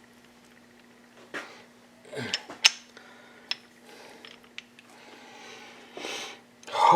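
Scattered light metallic clicks and clinks of transmission shafts, gears and shift forks being handled and fitted into a dirt bike engine's case half, over a faint steady hum.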